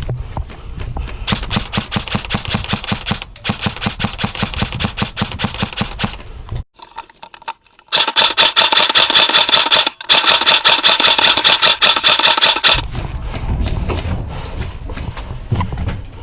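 Airsoft gun firing on full auto: a fast, even clatter of shots in two long strings. The second string, after a brief pause in the middle, is the louder one.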